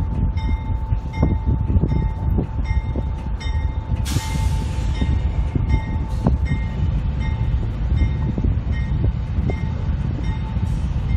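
CSX freight train's diesel locomotives rumbling steadily as they roll onto a wooden river trestle, with a rhythmic dinging about twice a second over the top. A brief rush of noise comes about four seconds in.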